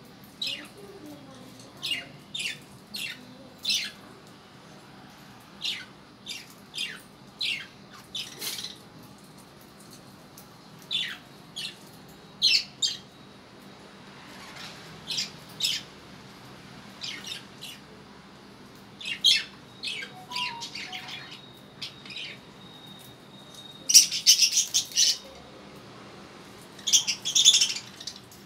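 Small caged pet parrots, budgerigars, chirping: a string of short, sharp calls at irregular intervals, with one thin held whistle and then louder clusters of calls near the end.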